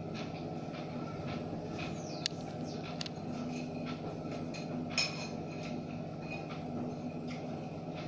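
A fork clinks and scrapes against a plate of food in scattered small clicks, the loudest about five seconds in, over a steady low hum.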